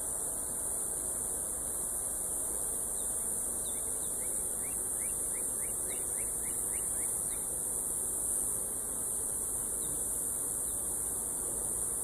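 Steady, high-pitched drone of insects, with a run of short rising chirps around the middle.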